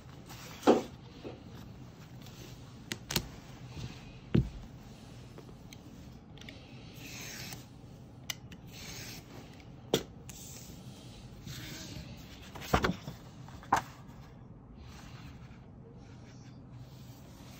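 Paper pattern sheet being handled on a desk: folded paper rustling and sliding, and a utility knife drawn through two layers of paper along a ruler, with several sharp taps and clicks spread through.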